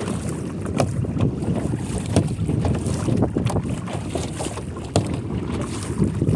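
Wind rumbling on the microphone of a kayak being paddled with a double-bladed paddle, with the water sounds of the paddle strokes and scattered sharp clicks several times a second.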